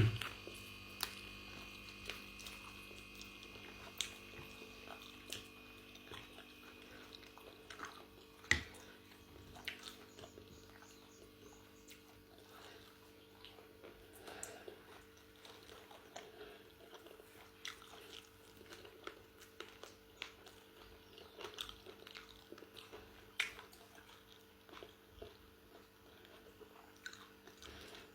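A person chewing and biting into crisp fried chicken chicharrón close to the microphone, with scattered small crunches and clicks. A steady low hum runs underneath.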